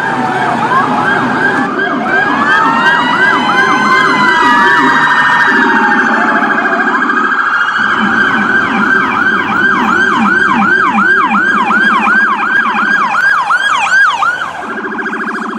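Electronic emergency siren sounding loudly, mostly in rapid falling sweeps about two a second, with several tones overlapping and a slower rising-and-falling wail partway through. A lower pulsing tone runs underneath.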